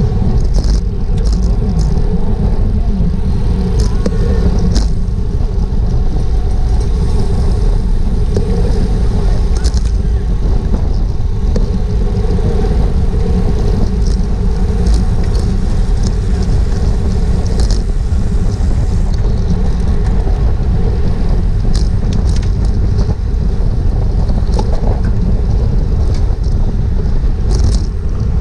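Steady rush of wind over an action camera's microphone, mixed with tyre and road noise from a racing bicycle at speed, with scattered light ticks throughout.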